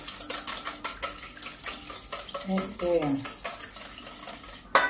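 Wire whisk beating a runny egg, oil and milk mixture in a stainless steel bowl: rapid, continuous metal clicking and sloshing against the bowl. A single sharp knock near the end.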